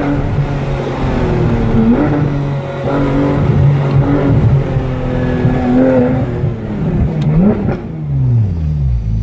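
Porsche 991 GT3's naturally aspirated flat-six, heard from inside the cabin. It runs at fairly steady revs with small rises and dips, briefly rises and falls about three quarters of the way through, then drops away near the end as the car slows.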